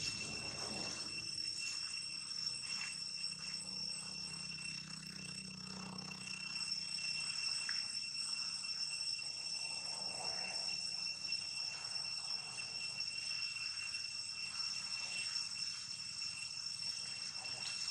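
Insects calling in a steady, high, unbroken drone at several pitches.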